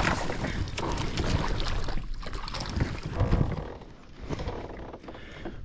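A hooked bass splashing at the side of a kayak as it is scooped into a rubber landing net, with knocks of handling against the hull and wind on the microphone. The splashing and knocking die down about four seconds in, once the fish is in the net.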